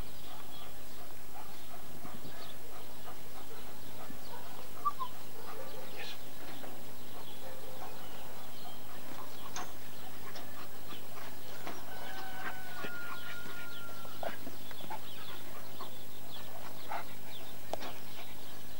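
Steady outdoor hiss with faint scattered ticks. About twelve seconds in, a faint drawn-out call lasts about two seconds.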